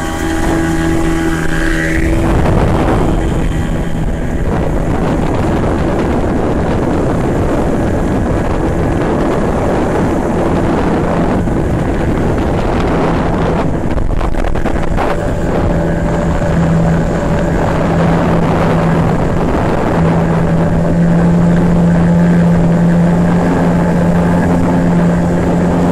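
Small outboard motor pushing a flat-bottomed boat along at speed, its note rising about two seconds in, then running steadily under a dense rush of wind and water noise.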